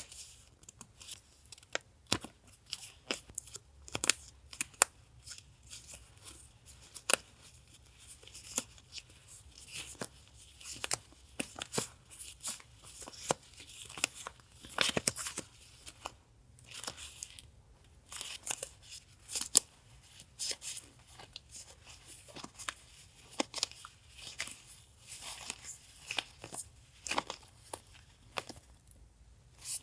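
Close-up handling of paper and packaging being opened: irregular rustles, crinkles and tearing with many sharp taps and clicks.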